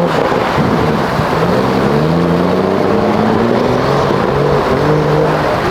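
Off-road 4x4 competition vehicle's engine revving under load, its pitch climbing several times and then holding steady, over a constant hiss of heavy rain.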